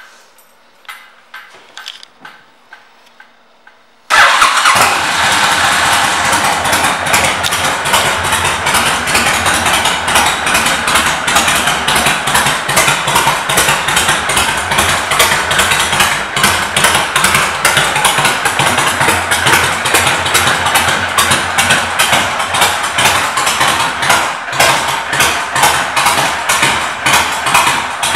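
Honda VTX1300C V-twin with aftermarket exhaust pipes starting about four seconds in and then idling, with a steady pulsing beat.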